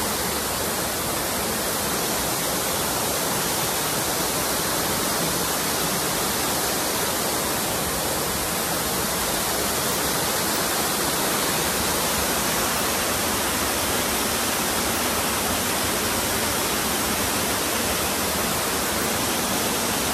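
Wadsworth Falls, a large waterfall, giving a steady, even rush of falling water.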